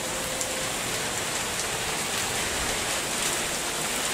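Steady rain falling and pattering on surfaces, with a few sharper drop ticks, from a rain band of Hurricane Irma.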